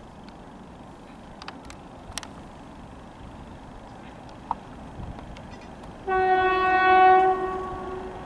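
Horn of an approaching electric multiple unit passenger train, sounded once about two thirds of the way in: a single steady tone lasting just over a second, then fading. Before it there is only faint rumble with a few small clicks.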